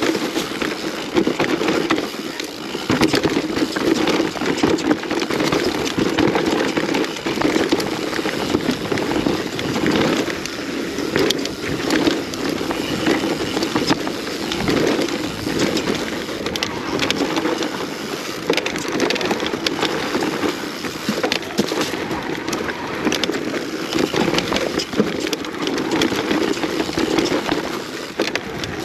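Mountain bike descending a rough enduro trail full of roots and stones: a continuous rush of tyre and trail noise with frequent short knocks and rattles from the bike as it hits roots and rocks.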